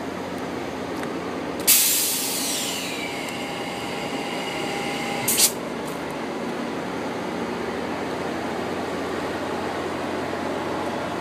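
Amtrak F40PH diesel locomotive running steadily close by. Just under two seconds in, a sudden loud hiss of compressed air starts and fades over a few seconds, then cuts off with a short sharp puff.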